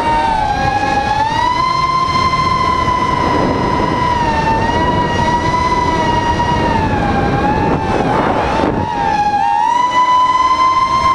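ImmersionRC Vortex Pro FPV racing quadcopter's motors and propellers whining as heard from its onboard camera, the pitch rising and falling with throttle. A brief rush of air comes about eight seconds in, as the whine dips.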